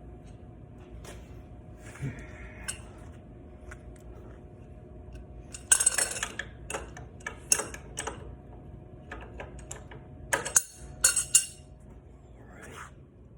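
Metal tools and small parts clinking and clattering as they are handled and set down, in scattered clicks with two busier clusters, one about six seconds in and one near the end.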